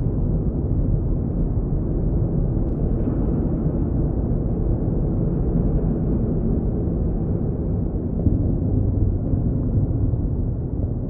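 A steady, loud low rumble of noise with no clear tone or rhythm, which cuts off suddenly just after the end.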